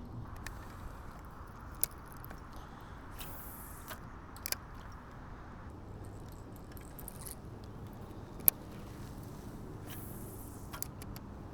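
Fishing tackle handled from a kayak: three sharp clicks, the loudest a little past the middle, and two short hisses over a quiet steady background, typical of casting a surface lure and working a spinning reel.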